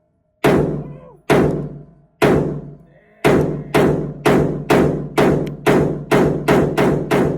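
Semi-automatic firearm fired in a string of about thirteen shots, each ringing out briefly. The shots come about a second apart at first, then quicken to about two a second.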